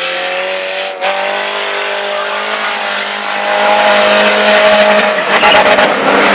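Race car engines running on a short oval track, their pitch rising as they accelerate, then holding steady. They grow louder about four seconds in, with crackling and rough noise near the end.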